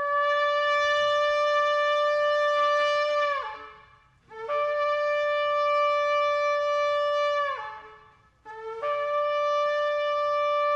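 Shofar (ram's horn) blown in three long, steady blasts of about three seconds each, separated by short pauses. Each blast ends with a quick drop in pitch.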